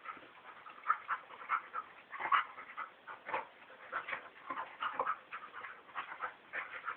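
Two dogs play-wrestling, giving a quick, irregular run of short whimpering and yipping sounds.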